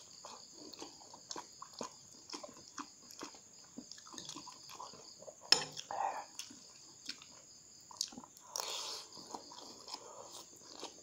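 Close-up chewing and slurping of noodles, with small clicks of a metal spoon and fork against a glass bowl and one sharper clink about five and a half seconds in.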